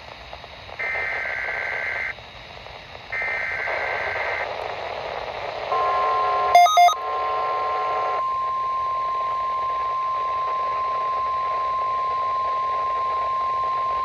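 Weather Radio Canada SAME digital header bursts, each a buzzy warbling data screech about a second long, twice in the first four and a half seconds. About six seconds in, the steady single-pitch warning alarm tone starts and holds to the end, with other tones and two short loud blips over its first two seconds. Together they are the opening of the Required Monthly Test alert.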